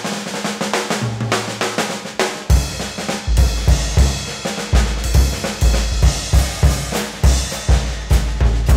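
Drum-heavy carnival music with busy snare drumming and rolls. About two and a half seconds in, deep bass notes join on a strong beat.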